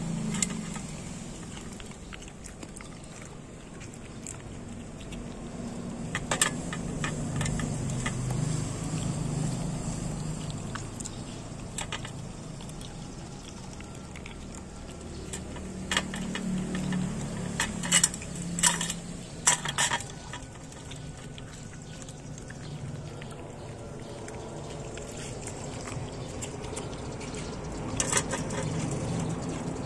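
Dog eating meat from a stainless steel bowl: wet chewing and licking, with sharp clanks of the metal bowl several times, most of them in a quick cluster a little past halfway.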